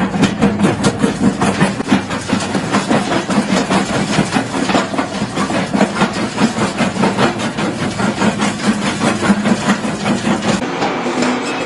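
Small jaw crusher running with a steady drone while stones fed into it crack and crunch in rapid, irregular knocks. About a second before the end the sound changes to a different machine.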